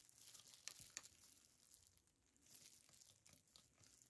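Faint crinkling and rustling of a thin clear plastic sheet being handled, with a few small ticks.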